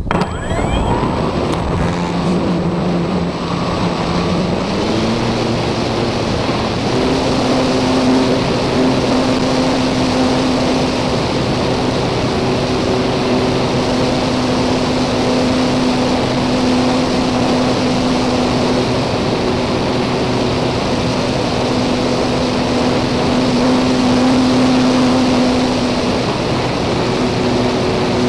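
Parkzone Radian motor glider's brushless electric motor and propeller running under power, heard from a camera on board the plane, under heavy rushing wind noise on the microphone. The motor's hum steps up in pitch about four to five seconds in, then holds steady.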